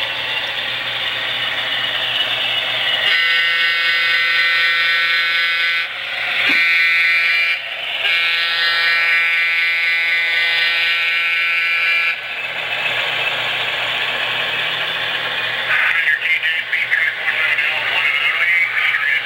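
Model diesel locomotive's onboard sound system blowing its horn from a small speaker: a long blast, a short one, then another long blast. Under and around it are the recorded diesel engine sound and the clatter of model train wheels on track.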